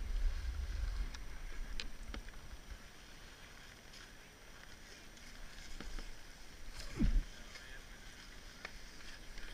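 Skis sliding slowly over packed snow and coming to a stop, with a low rumble in the first second. Small clicks and knocks of ski gear, and one short thump about seven seconds in.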